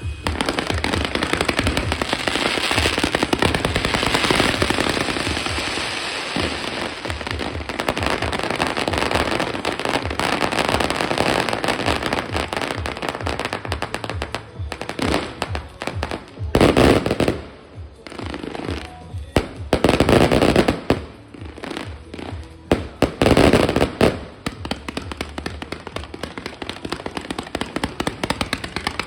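Fireworks going off in a dense, continuous crackle of rapid reports, with three louder bursts in the second half.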